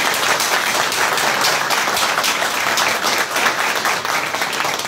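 Room full of people applauding steadily: dense, continuous clapping at the end of a speech.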